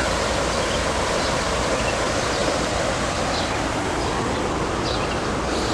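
Waterfall pouring into a lake: a steady, even rush of falling water.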